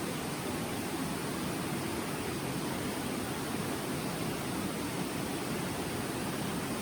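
Steady rushing of flowing river water, an even noise that holds a constant level throughout.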